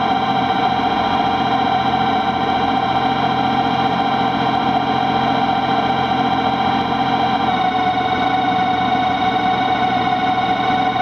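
Background music of sustained, distorted droning chords, moving to a new chord about seven and a half seconds in.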